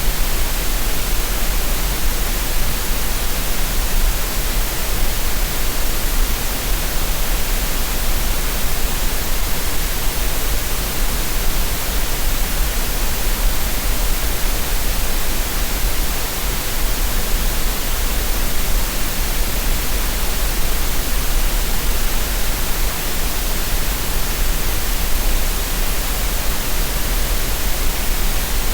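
Synthetic green noise: a steady, unchanging hiss spread evenly across low and high pitches, with no events or rhythm.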